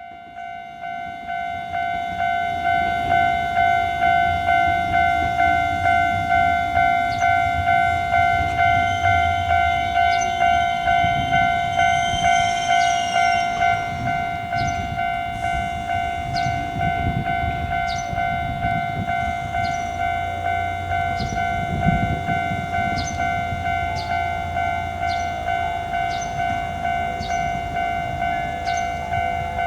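Japanese level-crossing warning alarm ringing its fast, even "kan-kan" rhythm, swelling up over the first couple of seconds; a second, slightly higher alarm tone joins a little past halfway. Underneath, a train rumbles by with regularly spaced clicks of wheels over rail joints and one louder thump.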